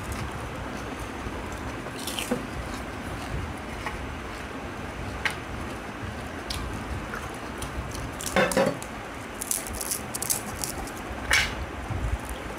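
Eating golgappas (pani puri): hollow puri shells being cracked open and eaten with the spiced water, a few scattered short crunches and wet slurps over steady background noise, the loudest about two-thirds of the way through.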